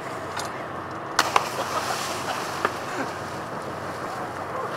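Sea water rushing and churning close alongside a lifeboat, a steady wash of noise, with two sharp knocks a little over a second in and a smaller one a moment later.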